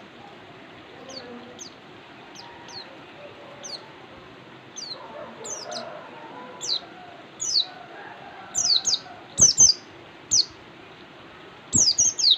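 Pleci (white-eye) songbird giving short high chirps, each sliding down in pitch. They come sparsely at first and grow louder and more frequent, with a couple of sharp knocks about nine and twelve seconds in.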